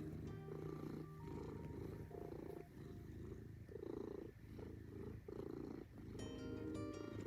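A cat purring close up, the purr swelling and fading with each breath a little more than once a second, over light background music.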